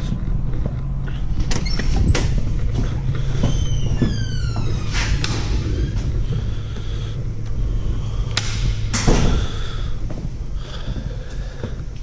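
A door being opened and shut: latch clicks, a short falling squeak, and two loud bangs near the end. Under it all runs a steady low mechanical hum.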